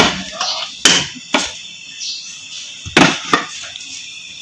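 A few sharp knocks and clatters of kitchen utensils: a pair about a second in and another pair about three seconds in.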